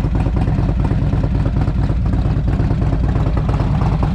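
A vehicle engine running steadily, heard as a low, even drone with no change in pitch.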